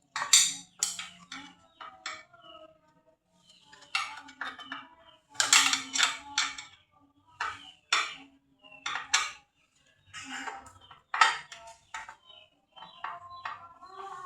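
Metal parts and tools clinking and clattering in irregular knocks while a scroll saw is being taken apart, with a ringing metallic tone starting near the end.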